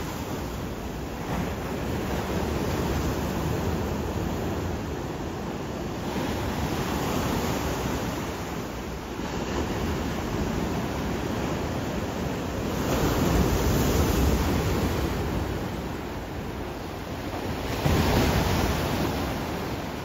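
Pacific Ocean surf breaking and washing over a rocky shore: a steady rushing that swells as each wave comes in, loudest about two-thirds of the way through and again near the end.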